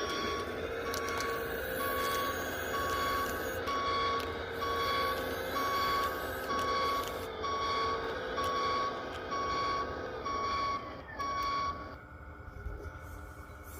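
Toy construction vehicle's electronic reversing beeper, beeping evenly a little faster than once a second over a steady hum. Both stop about twelve seconds in.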